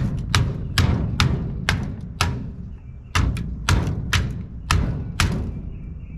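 Hammer blows on metal, about two a second with a short pause near the middle, knocking the rivets out of a golf cart charger's case.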